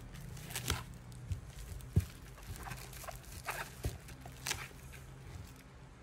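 Bubble wrap and plastic-wrapped tubs rustling and crinkling as they are handled in a cardboard box, with scattered soft crackles and a few light knocks.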